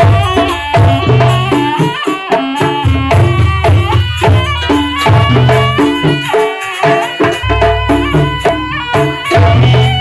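Loud jaranan accompaniment music from a gamelan-style ensemble: quick melodic runs of struck metal keys over drums, with a heavy low bass and a steady beat.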